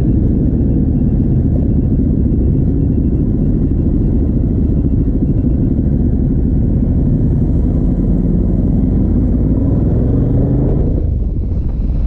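Ducati Multistrada 1200 S's Testastretta DVT L-twin engine running through a Termignoni racing exhaust, a deep rumble whose pitch rises and falls as the engine speed changes, dipping briefly near the end.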